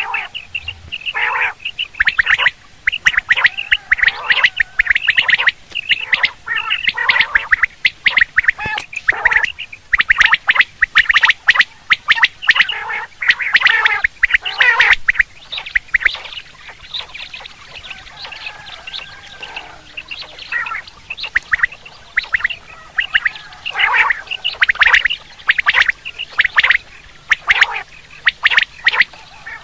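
Quail calling: runs of quick, sharp, repeated notes in close clusters, with a quieter spell in the middle. It is a quail call of the kind played to lure quail when hunting.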